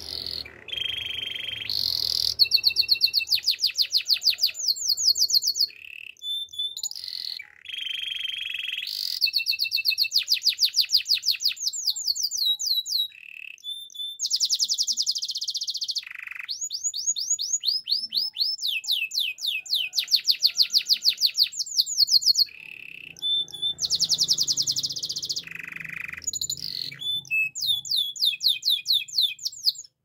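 Domestic canary singing a long song of fast trills. Rapid runs of repeated sweeping notes, about ten a second, come in phrases of a few seconds with short breaks, mixed with lower rolled passages.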